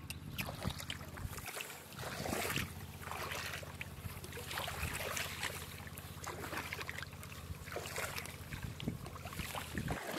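Wind rumbling on the microphone, with irregular rustling of rice plants and small splashes of shallow paddy water as a person wades and feels through the mud by hand.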